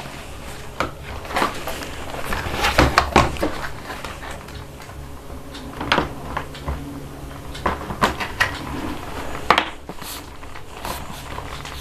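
Moulded plastic cupboard door panels knocking and clicking as the top door section is pressed onto its connector: a scatter of short knocks and snaps, the loudest about three seconds in.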